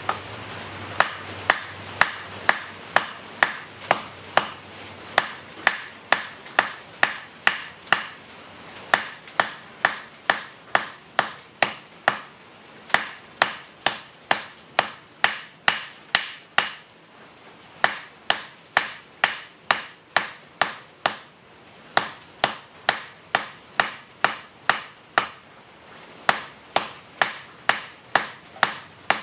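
Hand hammer forging a hot rail spike on a mild steel block anvil: sharp metal-on-metal blows about two to three a second, in runs broken by brief pauses, each with a short metallic ring, as the end of the spike is tapered and rounded.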